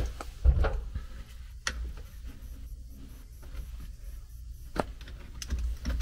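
A few sharp clicks and knocks, with a low rumble between them, from hands working the wiring inside a sheet-metal air handler cabinet.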